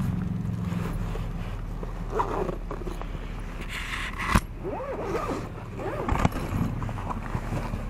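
Zipper and rustling of a delivery bag being opened and handled, with a sharp click about four seconds in.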